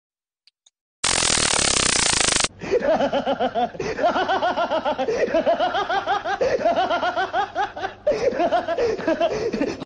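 About a second of silence, then a burst of harsh hiss lasting about a second and a half. After that a person laughs in a long run of rapid, pitched 'ha-ha' bursts, with a brief break near the end.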